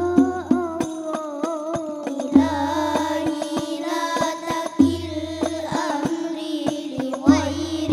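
Al Banjari sholawat: children singing a melodic devotional line together over rebana frame drums, with sharp hand slaps and a deep bass stroke about every two and a half seconds.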